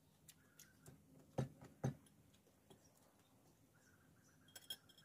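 Faint eating sounds at a meal table: scattered small clicks and two soft knocks, about one and a half and two seconds in, as fingers, spoon and plates are handled while someone eats.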